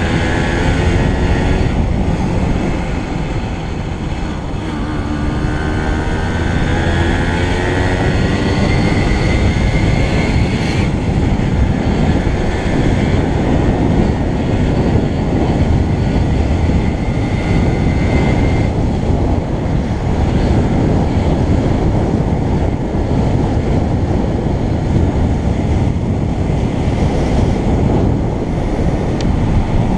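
Motorcycle riding along: the engine note climbs over the first ten seconds or so and climbs again after a short break, under a steady rush of wind on the microphone.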